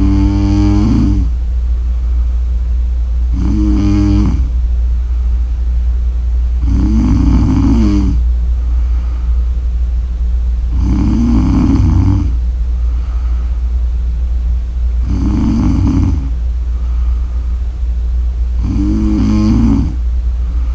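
A woman snoring: six pitched snores, each about a second long, coming about every four seconds over a steady low hum.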